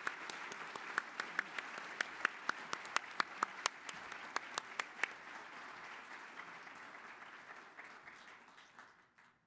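Audience applauding at the end of a speech, with many sharp individual claps standing out over the steady clapping in the first half; the applause dies away near the end.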